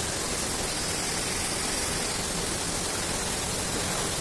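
Steady rushing hiss of running water from a forest stream and waterfall, even and unbroken.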